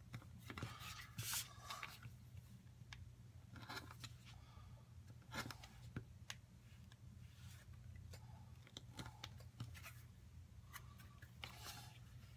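Hand-held blade cutting leather on a cutting mat: faint, intermittent scratchy strokes and small clicks as the blade chews around a corner, over a low steady hum.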